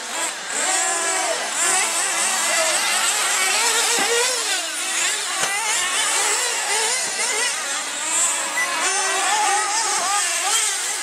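Several radio-controlled racing buggies with small nitro engines running at once, their high-pitched whines overlapping and constantly rising and falling as the cars accelerate and back off through the corners.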